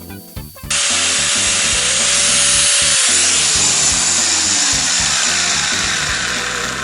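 Handheld power tool abrading a small part to shape it: a loud, steady rasping hiss that starts abruptly just under a second in, its motor note falling slightly as it runs. Background music plays underneath.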